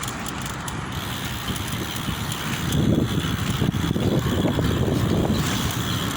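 Wind rumbling and buffeting on the microphone during a bike ride, growing louder from about three seconds in.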